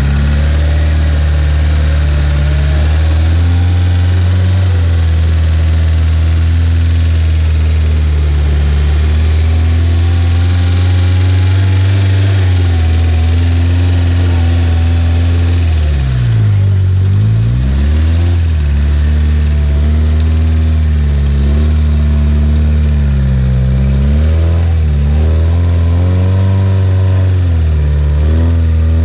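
Off-road vehicle's engine running under load, its revs rising and falling as it is driven. About two-thirds of the way through, the revs drop sharply and climb straight back up.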